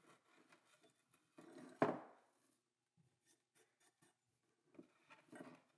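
Hands handling a swarf-covered hole cutter and a steel plane blade on a wooden workbench: faint rubbing and scraping, with one sharp knock about two seconds in and more rubbing near the end.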